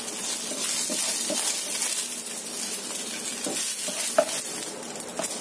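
Scrambled egg sizzling in hot oil in a wok as a spatula scrapes and stirs it out of the pan. A sharp tap sounds about four seconds in.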